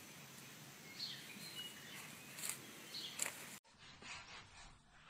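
Faint outdoor ambience with a few short bird chirps and light rustles, cutting off abruptly about three and a half seconds in to quiet indoor room tone.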